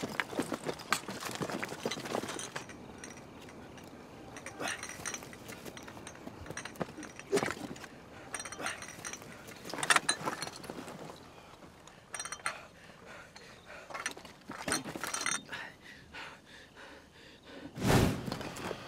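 Soldiers moving through undergrowth: grass rustling, footsteps, and rifles and gear clinking in scattered short clicks and crackles, with a heavier thud near the end.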